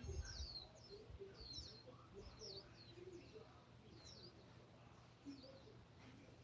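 Faint birdsong: small birds chirping in short, high, falling notes, one or two a second.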